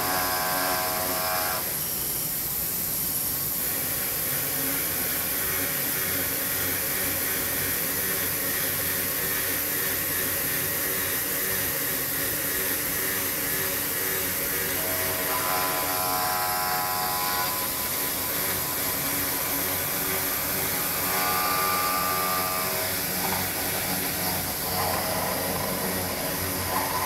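CNC stone work centre's spindle milling a block of marble under water coolant: a steady machine noise with a motor whine. A higher whine comes and goes several times as the cutter works.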